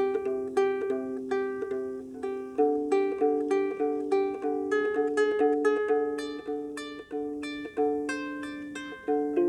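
Double diatonic harp, its strings plucked in a steady run of single notes, about two or three a second, each ringing on and overlapping the next.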